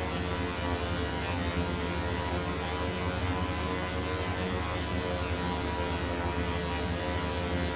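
A steady droning hum made of many held tones sounding together like a sustained chord, with a low rumble underneath and a noisy hiss above. It holds unchanged throughout.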